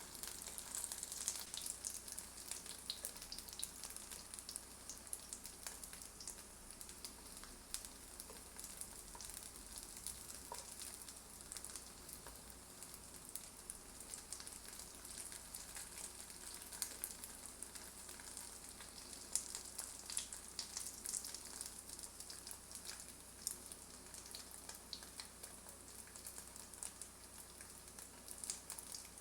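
Tofu frying in oil in a pan: a steady sizzle with frequent small crackling pops.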